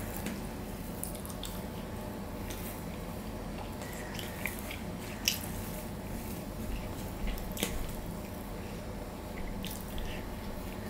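Fingers mixing and squeezing rice with mashed potato on a stainless steel plate: soft wet squishes and scattered light clicks of fingers against the plate, one sharper click about five seconds in.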